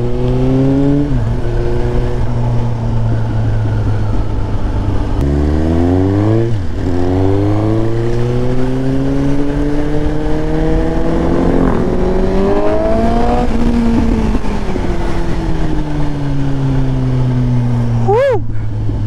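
Suzuki GSX-S 750's inline-four engine pulling hard through the gears under acceleration. Its pitch climbs, drops at shifts about a second and about six and a half seconds in, climbs again, then falls away as the bike slows. A quick dip and rise in pitch comes near the end.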